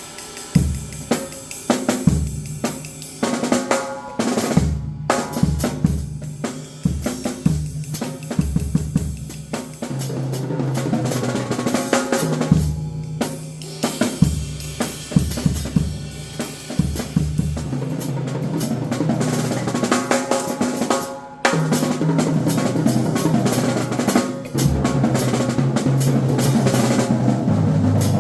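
Drum kit solo: fast snare, bass drum and tom strikes with rimshots and hi-hat, the playing growing denser about ten seconds in and again after a short break near the end.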